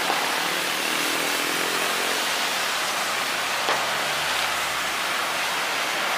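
Boeing 737 Next Generation's CFM56 jet engines on final approach, a steady rushing noise with a faint low hum underneath.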